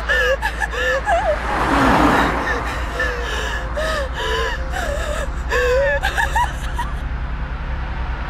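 A young woman crying hard: broken, wavering sobbing cries with gasping breaths, including a loud breathy gasp about two seconds in, over a steady low hum.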